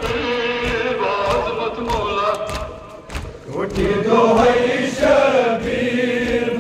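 A crowd of men chanting a Kashmiri Muharram noha in unison, with rhythmic chest-beating (matam) slaps about every two-thirds of a second. The chant dips briefly about three seconds in, then returns louder.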